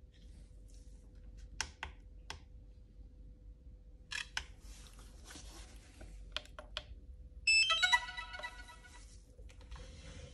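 Light clicks and handling noises of small parts, then a short run of electronic beeps at stepped pitches about seven and a half seconds in, the loudest sound. A faint steady hum runs underneath.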